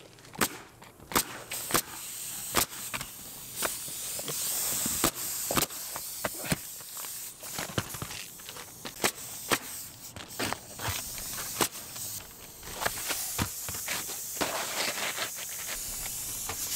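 Pneumatic roofing nail gun driving nails through asphalt shingles: a string of sharp shots at irregular intervals.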